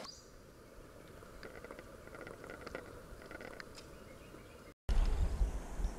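Quiet riverside ambience with faint, short high chirps repeated in quick runs through the middle. Near the end the sound drops out for a moment, then a loud low rumble of the microphone being handled or buffeted takes over.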